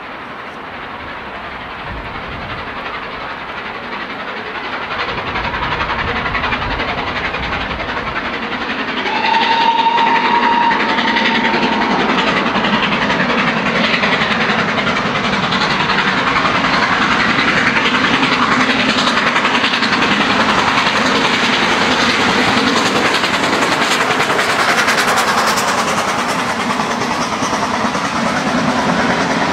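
GWR Castle class 4-6-0 steam locomotive working hard up the grade as it approaches, growing steadily louder, with one short whistle about nine seconds in. Its train of twelve coaches then rolls past close by, wheels running over the rails.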